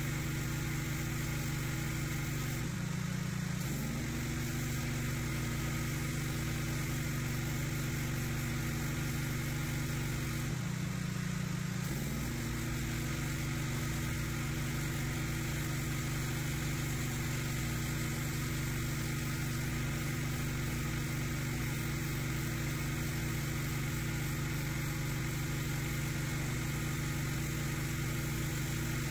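Petrol pressure washer running steadily, with the hiss of its spray on a concrete path. The engine's note changes and the hiss drops briefly twice, a few seconds in and about eleven seconds in, as the spray pauses.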